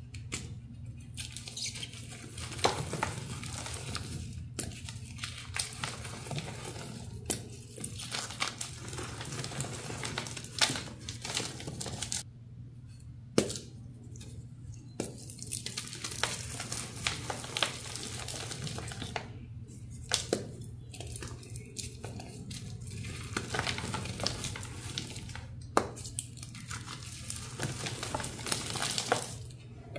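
Hands crushing and crumbling dry, crunchy powder blocks, some made with cornstarch: a continuous crackling crunch with many sharp snaps, broken by a few short pauses.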